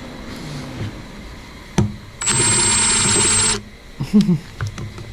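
Electric drill with a 7/32-inch bit running for about a second and a half against a door handle's thin pivot pin, a high steady whine over the cutting noise. The pin is spinning with the bit instead of being cut.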